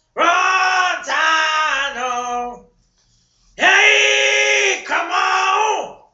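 A man singing unaccompanied, belting loud, high-pitched phrases. He stops for about a second in the middle, then holds a long loud phrase to the end.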